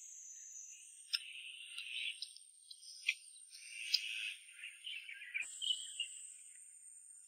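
Faint wet smacking with a few sharp clicks as meat is gnawed off a large cooked beef bone, over a steady high chirring of insects.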